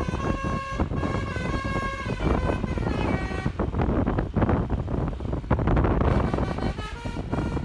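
Telolet multi-tone air horn on a Rio Rafi Group bus playing a tune of short stepped notes. About three seconds in, the horn gives way to vehicle and road noise, and it starts playing again near the end.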